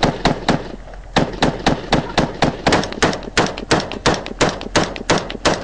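Close-range rifle fire: sharp single shots in a steady run of about four a second, with a short break about a second in.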